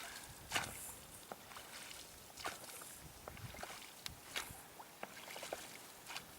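Faint splashes and light knocks from a small rowboat on the water, coming at irregular intervals, as from oars dipping and the hull moving.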